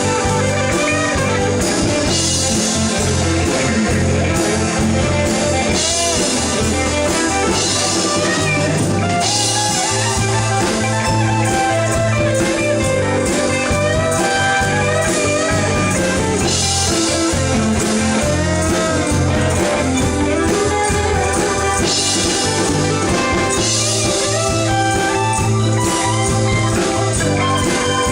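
Rock music with a wordless electric guitar solo, its notes bending and gliding, over bass and drums with cymbals.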